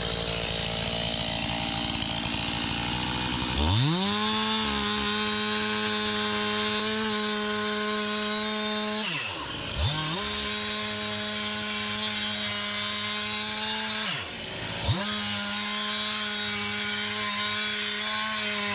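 Two-stroke chainsaw ripping lengthwise through a red oak log with a standard chain. The engine revs up to full throttle about four seconds in and holds a steady high pitch for several seconds at a time. It drops off briefly twice, about nine and fourteen seconds in, and comes straight back up each time.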